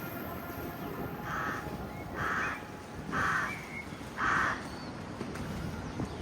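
A crow cawing four times, about once a second, each caw short and harsh.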